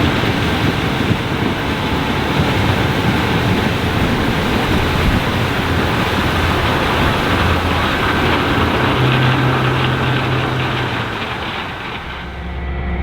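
Challenger 560C combine running under load while harvesting corn: a dense, steady mechanical rush and rumble from the engine and threshing machinery. Near the end it changes to a steadier hum with a few clear, even tones.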